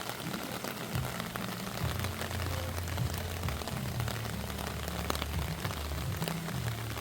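Flowing river water rushing steadily, a constant hiss with no breaks.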